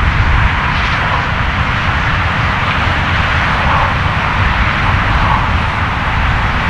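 Jet airliner's engines, a steady loud rush with a deep rumble underneath.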